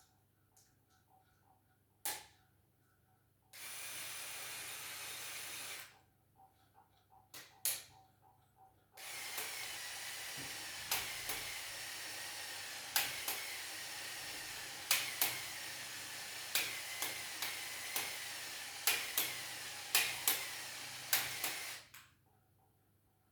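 A small motor runs for about two seconds, stops, then runs again for about thirteen seconds. Sharp clicks come every second or so through the longer run.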